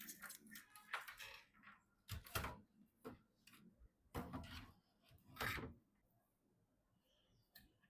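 Hands handling computer parts: a run of plastic and metal clicks, rattles and rustles in four or five separate bursts, going quiet near the end.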